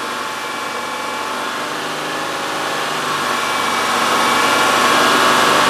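Car engine running steadily at about 3,000 rpm, held at raised revs for a charging-system test, growing louder in the second half.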